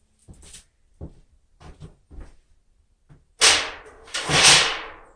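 Handling noise as another beehive frame is fetched: a few light knocks and taps, then two loud, brief swishes about three and a half and four and a half seconds in.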